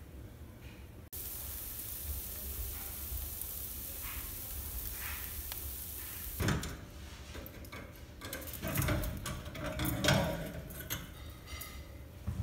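Pork tenderloin sizzling on a steel grill grate over hot wood embers: a steady hiss that starts suddenly about a second in. From about halfway, a series of knocks and metal clanks as the barbecue grate is handled and taken out of the wood stove.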